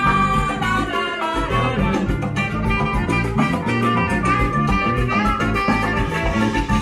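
Live band playing salsa music.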